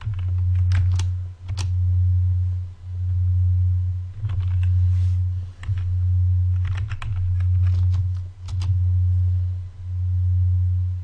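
Computer keyboard keystrokes and mouse clicks in a few short clusters, over a loud low hum that swells and dips about every second and a half.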